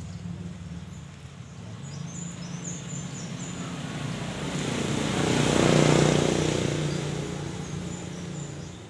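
A motor vehicle passing by, its engine sound swelling to a peak about six seconds in and then fading away. Faint bird chirps sound over it.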